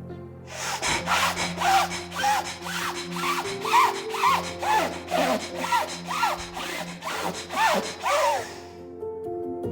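Bhastrika pranayama (bellows breath): forceful, rhythmic breaths in and out through the nose, about three a second, starting about half a second in and stopping shortly before the end, over soft background music.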